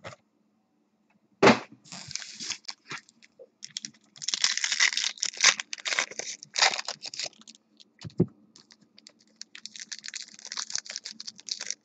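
Foil trading-card packs crinkling and clicking as they are handled and stacked on a table, with a sharp knock about a second and a half in and a dull thump about eight seconds in.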